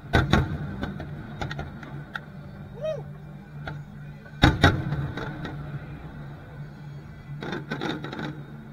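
Fireworks aerial shells bursting in booming bangs with echoing tails: a pair right at the start, the loudest pair about four and a half seconds in, and a quicker cluster of bangs near the end, over a steady low hum.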